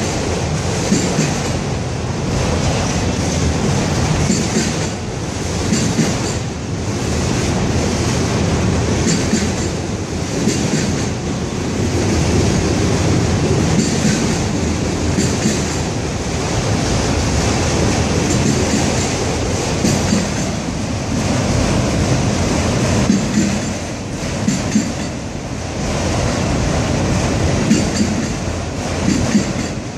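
Freight train of autorack cars rolling past: a continuous rumble of steel wheels on rail, with repeated clacks as wheelsets cross rail joints.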